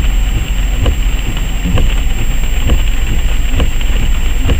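Car running, heard from inside the cabin: a steady low rumble of engine and road noise, with light knocks now and then.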